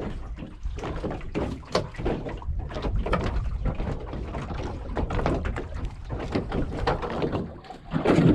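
Irregular knocks and clatter aboard a small fishing boat, over a steady low rumble.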